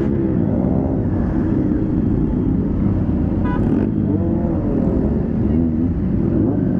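Several motorcycle engines running at a low idle and crawl, with the voices and shouts of a dense crowd over them. A brief high beep sounds about three and a half seconds in.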